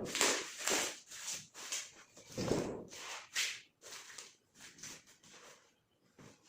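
Hand work on wood: a run of irregular rubbing or scraping strokes, growing sparser and fainter and nearly stopping near the end.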